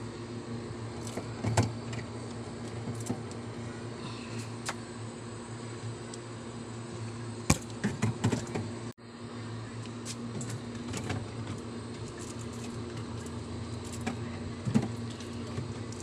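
Steady electric hum of a running refrigerator, with scattered clicks and knocks as plastic bottles and drink cartons are handled and set on its wire shelves; the loudest knocks come about seven and a half seconds in, followed by a short cluster.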